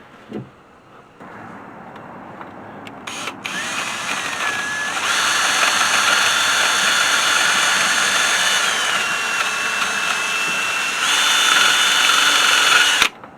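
Handheld power tool motor whining steadily at a high pitch. It speeds up, slows down and speeds up again as the trigger is worked, then stops abruptly near the end.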